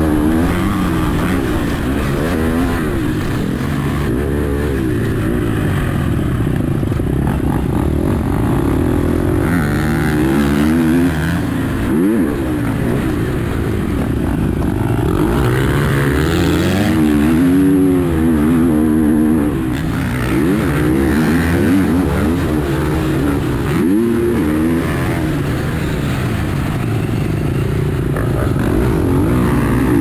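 KTM SX-F motocross bike's four-stroke single-cylinder engine ridden hard on a dirt track, its pitch rising and falling over and over as the rider revs out, shifts and backs off.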